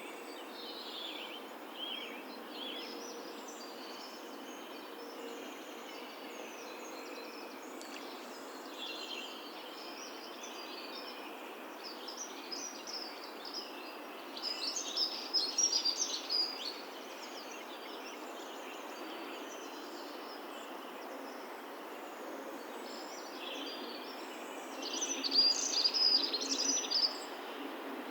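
Wild birds singing and chirping over a steady background hiss of rural outdoor ambience, with two louder, busier bursts of song, one about halfway through and one near the end.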